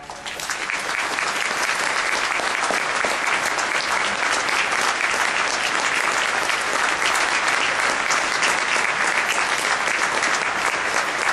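Audience applauding. The clapping swells in the first second and then stays dense and steady.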